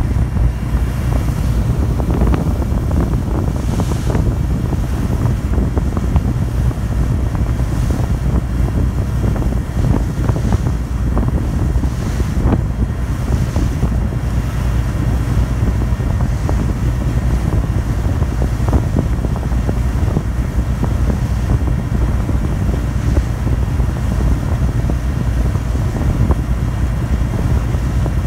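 Steady low drone of a passenger ferry's engines under way, with wind buffeting the microphone and water rushing past the hull.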